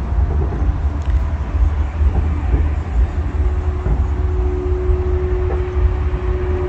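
Steady low rumble of city traffic heard from high above, with a steady humming tone joining a little past halfway.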